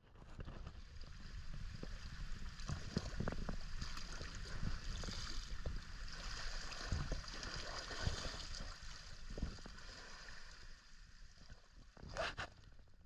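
Small sea waves sloshing and gurgling against a rocky shoreline, with wind rumbling on the microphone. A short louder splash comes near the end.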